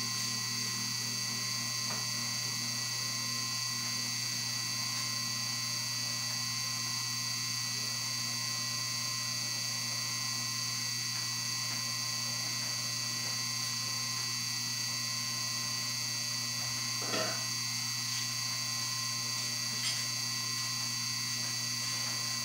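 Steady electrical hum with several unchanging high-pitched whine tones over it, interrupted by one brief knock about 17 seconds in and a fainter click about 20 seconds in.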